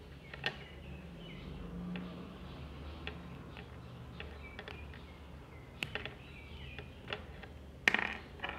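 Scattered small plastic clicks and faint creaks from fingers working at a Bluetooth earbud's casing, trying to pry it apart. The loudest click comes near the end.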